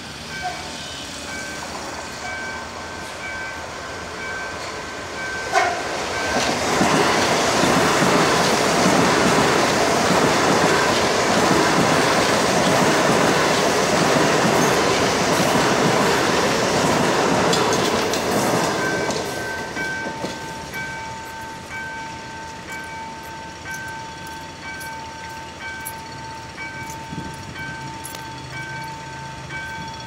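A CSR/Mitsubishi electric multiple-unit train passes close by on the tracks. It swells to a loud, even rumble about six seconds in, holds until about nineteen seconds, then fades away.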